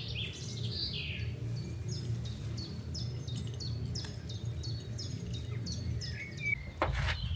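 A songbird singing a long series of short, high notes, each falling slightly, repeated evenly for about five seconds over a low steady rumble, with a couple of knocks near the end.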